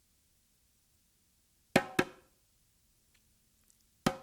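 A drum struck by hand in short pairs: two hits a quarter-second apart, a pause of about two seconds, then two more at the end. Each hit rings briefly with a few clear tones.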